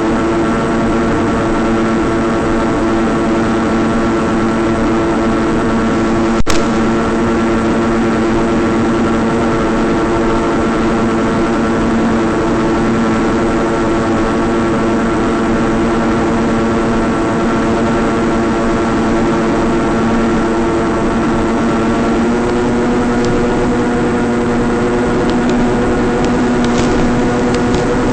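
Electric motor and propeller of a flying-wing model plane running at a steady throttle, a constant hum with hiss over it. There is one sharp click about six seconds in, and the pitch steps slightly about three quarters of the way through.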